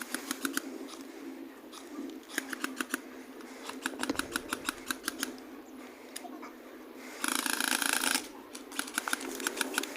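Airsoft guns firing in rapid bursts of sharp clicks, about eight shots a second, in several strings. A dense, continuous burst lasts about a second near the seven-second mark.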